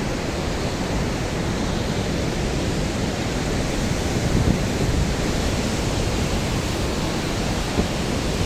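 Sea waves breaking against a rocky cliff, mixed with wind on the microphone: a steady rushing noise.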